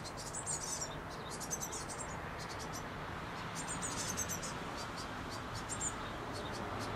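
Blue tit fledglings calling: very high, thin notes in quick runs, several bursts a few seconds apart, over a steady background noise.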